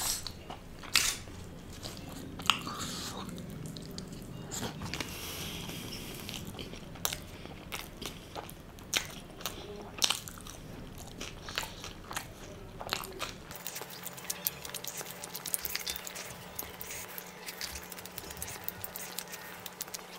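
A person eating close to the microphone: biting and chewing food, with scattered crunches and wet clicks. About thirteen seconds in, the sound turns to a steadier run of small smacking clicks over a faint hum.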